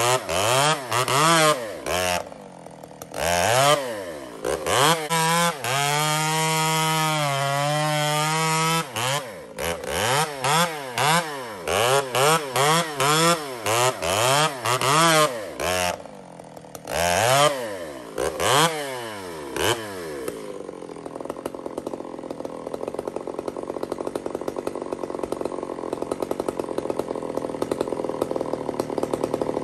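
Two-stroke chainsaw revved in quick repeated throttle blips while bucking a log, with a longer held cut a few seconds in where the pitch sags under load. About twenty seconds in it drops to a steady idle.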